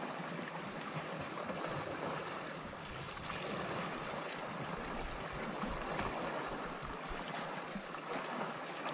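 Steady wash of sea water with wind buffeting the microphone.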